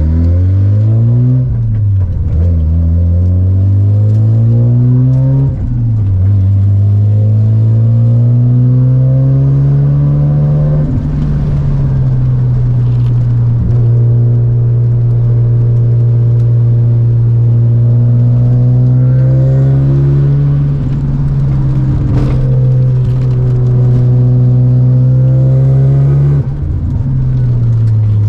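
Single-turbo Mazda RX-7 FD3S's 13B rotary engine driven hard, heard from inside the cabin. The revs climb in long rising sweeps and fall sharply several times at shifts, with a long stretch at high, nearly steady revs in the middle.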